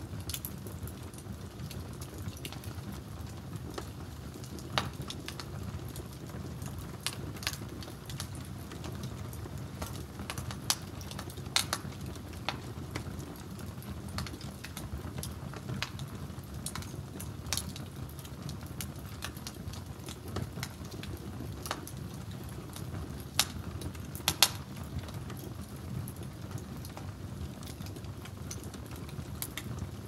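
Wood fire crackling, with scattered sharp pops over a steady low rumble of flames and a pot boiling on the fire. Two louder pops stand out, about twelve and about twenty-four seconds in.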